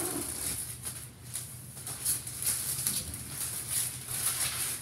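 Adhesive shipping tape being peeled off the keys of a new keyboard controller, crackling in short, irregular bursts.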